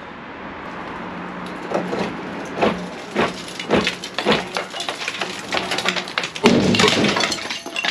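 Cast iron soil stack knocking and clanking as it is worked loose, a string of sharp knocks, then a louder crash and clatter near the end as the stack comes down.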